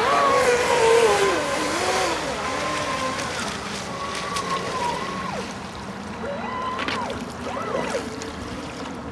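Radio-controlled model speedboat's motor whining, its pitch rising and falling as the throttle is worked, dropping sharply about five seconds in and climbing again a second or so later.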